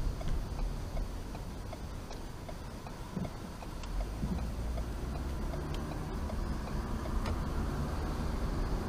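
Car's turn-signal relay clicking evenly, about two to three clicks a second, over the low rumble of the engine and road noise heard from inside the cabin as the car waits at a junction and turns.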